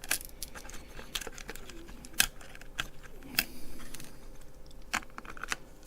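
Tiny screws being undone with a small screwdriver from the circuit board of a plastic BT-168D battery tester, with the parts handled: irregular light clicks and scrapes, and a few sharper taps.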